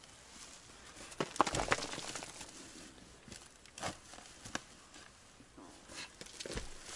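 A shovel working leaf-covered earth: a short burst of scraping and crunching about a second and a half in, then a few single crunches and rustles as boots step through dry leaves.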